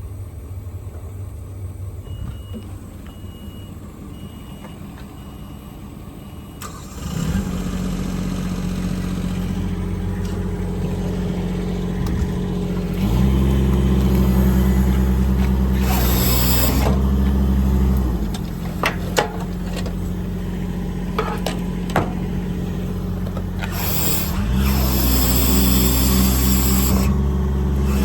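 A chime beeps several times, then the Ford F550's 6.7 L Power Stroke V8 diesel starts and settles into a steady idle. About six seconds later its speed steps up, with brief hissing bursts and a few clicks over the running engine.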